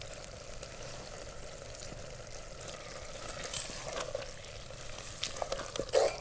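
Vegetables and paneer in spiced sauce sizzling in a pan over a campfire: a steady frying hiss, with scattered light clicks that come more often in the second half.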